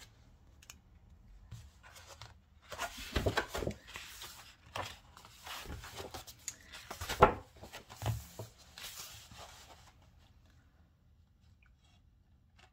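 Paper rustling and crackling as a paperback paper doll book is opened and its pages are turned, in irregular handling sounds with one sharp crackle just past the middle.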